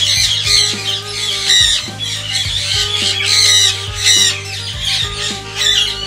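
Conures squawking: loud, harsh shrieks repeated about once a second.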